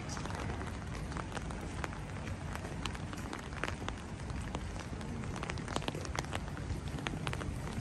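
Outdoor city street ambience recorded while walking: a steady low rumble with many small sharp clicks and taps scattered through it.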